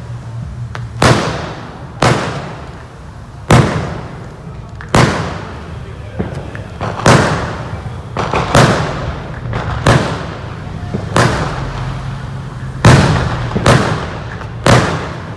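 Fireworks set off in the street, going off in a string of sharp bangs about one every second or so, each with a short echo.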